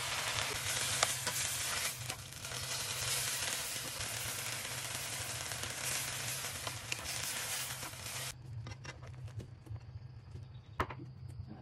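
Beef and napa cabbage sizzling in a hot pan as they are stir-fried with a spatula. The sizzle cuts off suddenly about eight seconds in, leaving a steady low hum and a few light clicks of the spatula as the food is scooped onto a plate.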